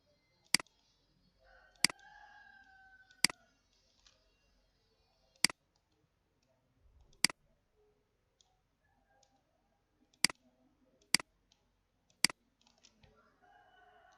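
Computer mouse clicking: eight sharp single clicks at uneven intervals, one to three seconds apart.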